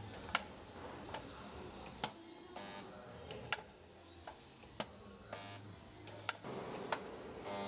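Hanging resistance spot-welding gun welding the steel grille panel of a Classic Mini: sharp clicks as the electrodes clamp and release, about seven of them, and two short electric buzzes as welds are made, over a low hum.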